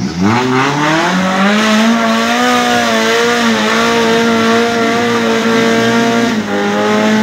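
Small four-wheel-drive off-roader's engine revved hard and held at high revs while the vehicle drives through a deep muddy rut under load. The pitch climbs quickly at the start, holds steady, and dips briefly about six seconds in before rising again.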